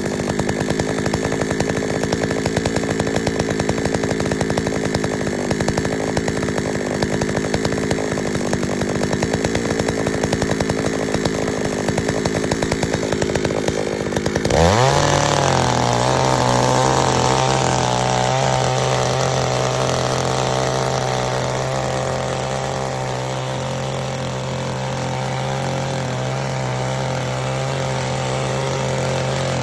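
Kawano mini tiller's small two-stroke engine running at a low speed with its separate firing strokes audible. About halfway through it revs up sharply and holds a steady high speed.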